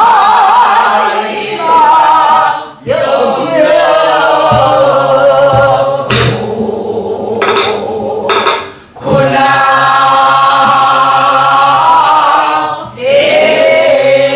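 A woman singing Namdo folk song (southwestern Korean minyo) in long held phrases with a heavy, wavering vibrato and pitch bends, breaking for breath three times. A few sharp strokes on a buk barrel drum come about halfway through.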